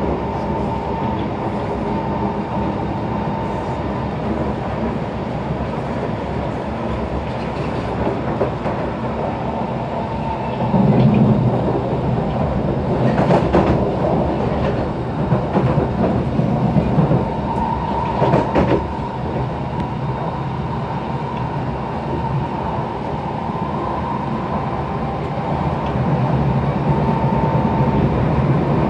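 SMRT C151 Kawasaki Heavy Industries metro train running at speed, heard from inside the car: a steady rumble of wheels on rails with a thin steady high tone over it. The rumble grows louder about eleven seconds in, and a few sharp clacks come in the middle.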